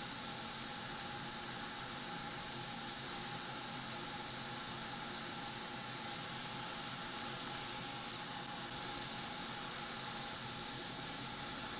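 Hot air rework station blowing a steady hiss of air onto a MOSFET, heating its solder so the chip can be lifted off the laptop motherboard with tweezers.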